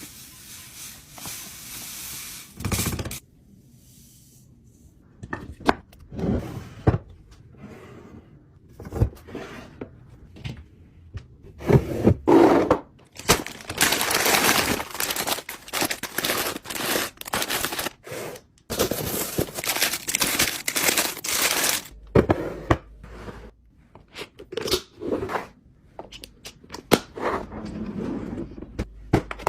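Kitchen handling sounds as food and containers are put away: a series of knocks, clicks and scrapes of items being set down and moved, with two longer stretches of steady rustling or rushing noise about halfway through.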